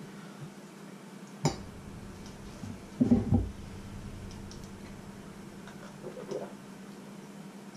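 Kitchenware being handled: a sharp clink about one and a half seconds in, as a stainless steel lid is set over a small bowl, then louder dull knocks about three seconds in as a mug is lifted from a wooden board, and a few faint knocks near the end. A steady low hum runs underneath.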